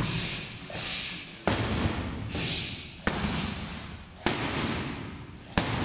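Boxing gloves striking focus mitts: four sharp smacks, a little over a second apart.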